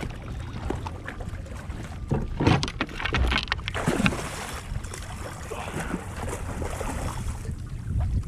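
Water sloshing and splashing around a fishing kayak at sea, with wind rumbling on the microphone. A louder stretch of splashing and knocks comes about two to four and a half seconds in.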